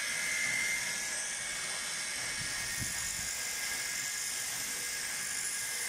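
Belt sander running steadily with a high whine while a wooden walking-stick handle is shaped against the abrasive belt.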